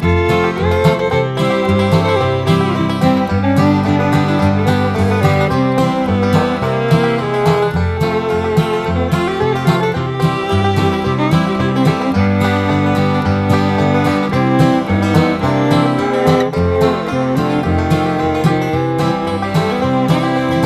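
Background music: upbeat country-style instrumental with plucked guitar and fiddle over a steady beat.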